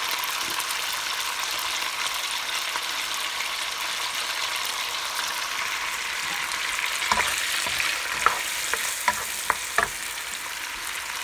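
Pork belly and minced garlic sizzling in hot oil in a nonstick wok as the garlic is sautéed. From about seven seconds in, a utensil stirs them, with a few sharp knocks against the pan.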